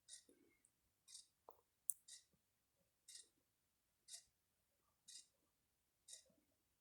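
Near silence, with faint, evenly spaced ticks once a second and one sharper click about two seconds in.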